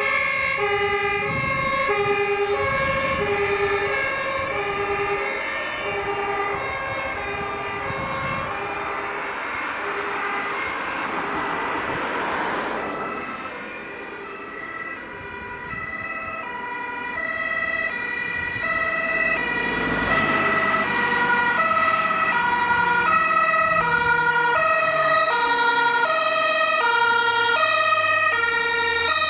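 German two-tone emergency siren (Martinshorn) alternating between two pitches. One siren fades away in the first half while another, from an approaching Mercedes-Benz fire engine, grows louder, with the truck's engine audible near the end. Vehicles swish past about halfway through and again about two-thirds of the way in.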